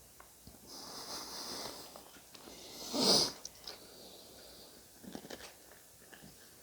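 A person chewing a mouthful of cereal and milk, breathing through the nose: a long soft breath about a second in, a louder short breath about three seconds in, then a few small crunching clicks near the end.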